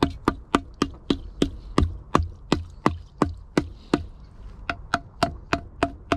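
Small hammer tapping rapidly on a sheet of ice frozen over a plastic pot of water, about three to four sharp knocks a second, to break the ice loose from the frozen drinker.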